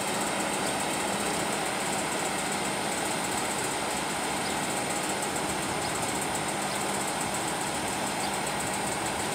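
An engine idling steadily, a continuous even drone with a faint hum and hiss.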